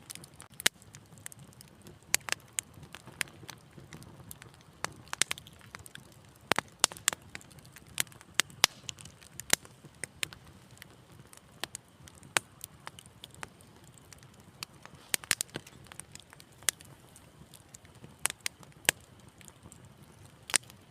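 Wood fire crackling in a fireplace: irregular sharp pops and snaps, several close together at times, over a low steady rumble of the burning.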